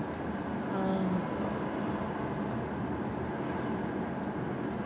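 Steady road and engine noise inside a moving car's cabin: an even rumble of tyres and motor at cruising speed.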